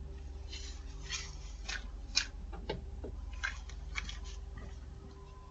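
Doorbell-camera audio: a steady low electrical hum with faint, irregular clicks and scuffs, about a dozen over a few seconds.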